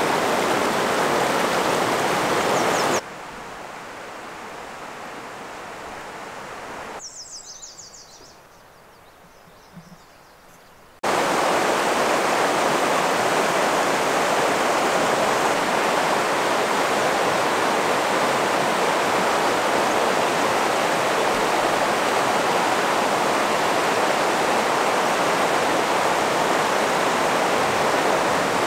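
Shallow, fast river rushing over rocks: a steady wash of water. About three seconds in it cuts to a much quieter stretch, where a brief high chirp is heard, and about eleven seconds in the rushing comes back as loud as before.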